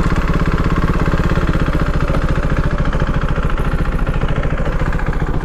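Yamaha R15 V3's single-cylinder engine idling steadily through an aftermarket Akrapovic slip-on exhaust, with a fast, even pulse.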